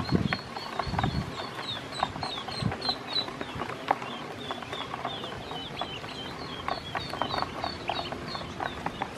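Ducklings peeping steadily, a quick run of short, high, slightly falling peeps, while their bills peck and tap at feed on the floor of a plastic basin, giving scattered sharp clicks.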